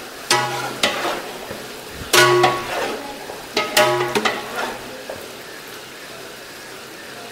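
A long-handled metal ladle clangs against the rim of a large metal cooking pot three times as it scoops marinated chicken, and the pot rings briefly after each knock. A steady low hiss runs underneath.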